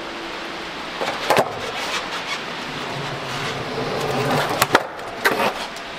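Skateboard wheels rolling on a concrete floor, with sharp clacks of the board about a second in and a cluster of louder clacks near the end.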